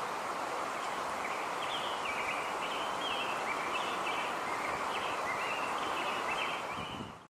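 Outdoor nature ambience: a steady even hiss with a bird's short chirps repeating from about a second in. It cuts off suddenly near the end.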